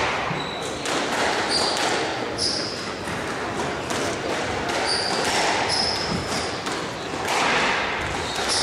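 Squash rally: the ball smacking off rackets and court walls every second or so, with squash shoes squeaking briefly on the wooden floor.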